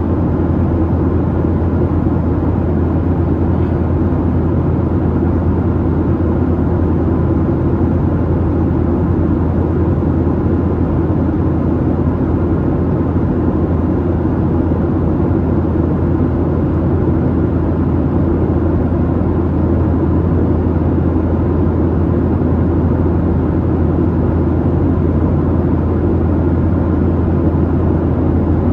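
Steady, deep drone of cabin noise inside a Boeing 737-700 in flight: its CFM56-7B engines and the rush of air past the fuselage, unchanging throughout.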